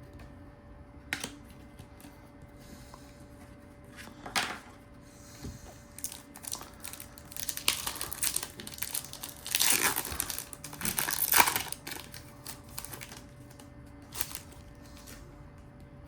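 Foil trading-card pack wrappers crinkling and tearing as packs are opened by hand, in scattered bursts with the loudest stretch past the middle.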